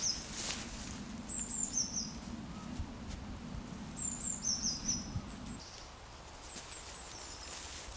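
A small songbird singing three short, high phrases of quick notes that step downward. Under it runs a faint low hum that stops about five and a half seconds in.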